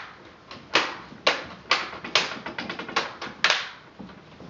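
Plastic screen bezel of a Toshiba Satellite C655D laptop snapping back onto the display lid, its clips clicking into place one after another, about two sharp clicks a second.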